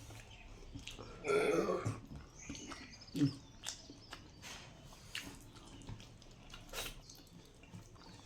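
A person eating close to the microphone: chewing with wet lip smacks and many short clicks, with a louder brief burst of sound just over a second in.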